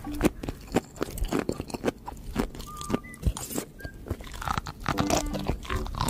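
Close-miked chewing of sea grapes (umibudo): a quick, dense run of crisp little crunches and clicks as the bead-like seaweed bursts between the teeth.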